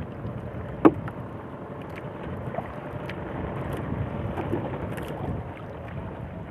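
Wind on the microphone and water against a small fishing boat, a steady rumble, with one sharp knock just under a second in and a few faint clicks after it.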